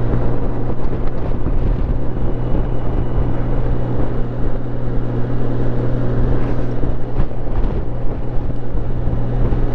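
Motorcycle engine running at a steady cruise, its low hum unchanging, with wind noise on the rider's microphone.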